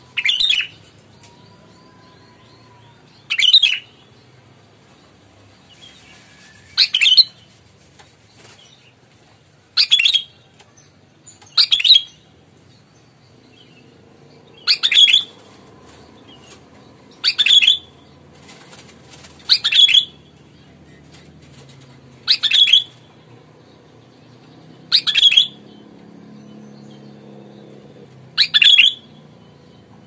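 Sooty-headed bulbul (kutilang) giving short, loud calls, eleven in all, one every three seconds or so.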